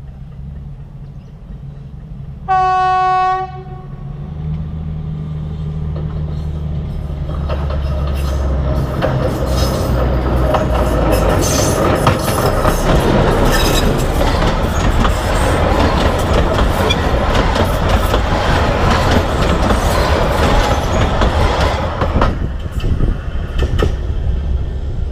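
Narrow-gauge diesel locomotive sounds one horn blast about three seconds in. Then its engine rumble builds as it approaches, and the passenger train passes directly overhead with loud wheel clatter over the rails for about fifteen seconds. The sound fades near the end.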